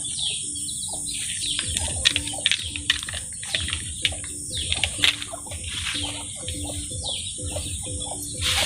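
Birds chirping over a steady high-pitched hiss, with a few sharp knocks and scrapes of a long-handled scraper on a dirt yard as cow dung is gathered up.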